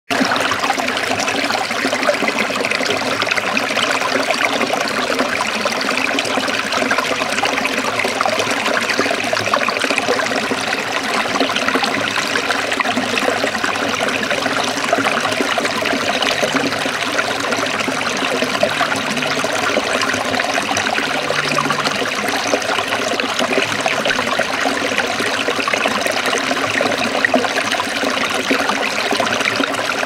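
Small stream running in little cascades over rocks and splashing steadily into a shallow pool.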